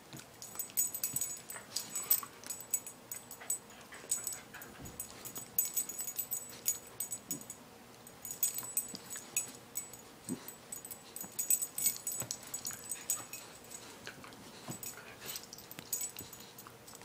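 Puppy chewing and tugging at her own ear while squirming on a cushion: irregular scuffling with many small clicks and light clinks.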